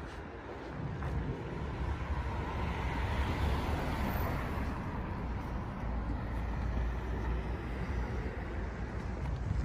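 A car driving past: its tyre and engine noise swells to a peak about four seconds in, then eases off, over a steady low rumble.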